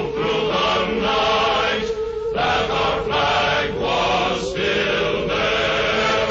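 Choral music: a choir chanting in long held notes, with a few brief breaks between phrases.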